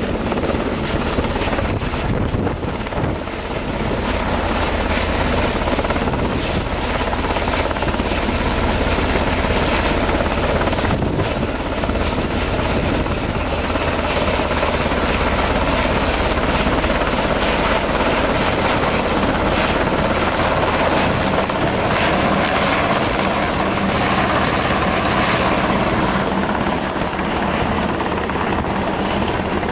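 Coast Guard Sikorsky MH-60T Jayhawk helicopter hovering close by: loud, steady rotor and turbine engine noise.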